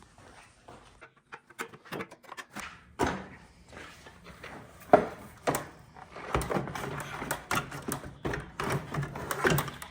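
Metal clinks, knocks and clatter as the exhaust springs are pulled off and the stock silencer is worked loose from the snowmobile, with one sharp knock about halfway through.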